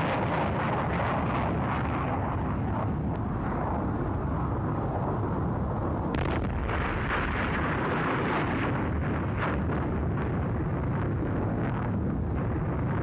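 Steady roar of jet aircraft engines during a rolling takeoff, holding at an even level throughout.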